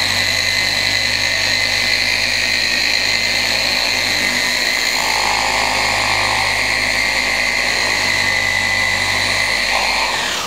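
Electric car polisher running steadily with a high, even whine, winding down near the end.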